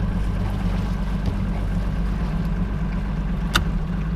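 Bass boat's outboard motor idling steadily, a low even hum. A single sharp click about three and a half seconds in.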